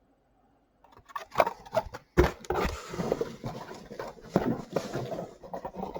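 Diecast toy car and its plastic packaging being handled: irregular sharp clicks and taps with crinkling plastic, starting about a second in.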